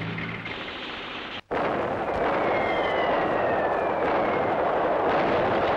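Film battle sound effects. A tracked armoured vehicle's engine hums steadily at first, then cuts off abruptly about a second and a half in. A dense, loud din of explosions follows, with a few falling whistles over it.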